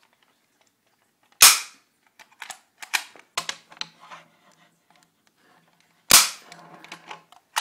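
Staple gun fired twice, about five seconds apart, each shot a loud, sharp snap. Smaller clicks fall between the shots, and a short sharp click comes at the very end.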